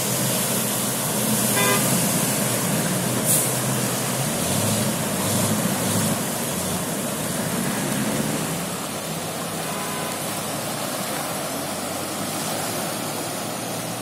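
Cars and a truck driving through deep floodwater, their engines running under a steady rush and splash of water. A short car horn toot sounds about two seconds in.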